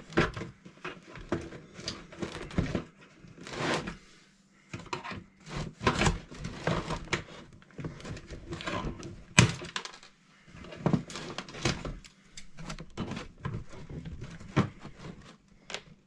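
Packaging in a cardboard box being handled and cut free: an irregular run of clicks, rustles and knocks.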